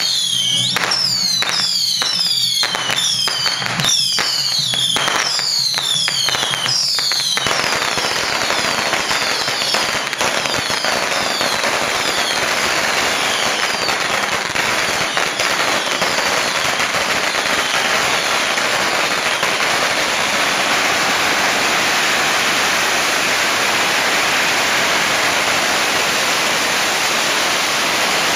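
Music with repeated high falling notes and sharp beats, cut off about a quarter of the way in by a long string of firecrackers going off in a dense, continuous crackle that keeps on.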